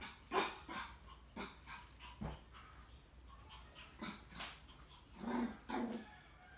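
Small dog giving a string of short, yappy barks and whimpers during play, about ten in all, with two fuller, lower barks near the end.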